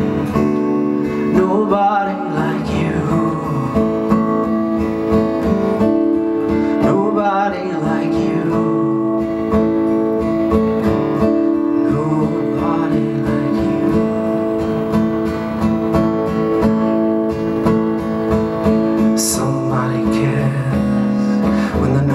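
Acoustic guitar strummed steadily as song accompaniment.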